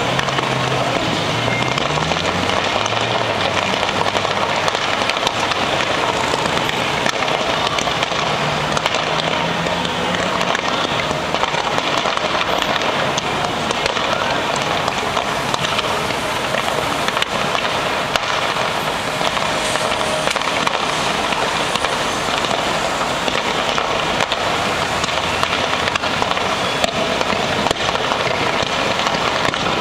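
Fireworks and firecrackers crackling in a dense, unbroken stream of small pops.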